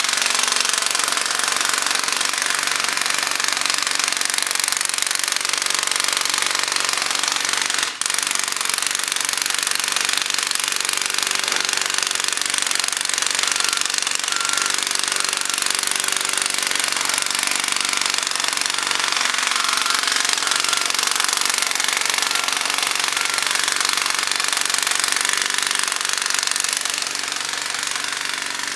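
Jackhammer pounding continuously in a rapid, even rattle, with an engine running steadily underneath. It breaks off for an instant about eight seconds in and eases slightly near the end.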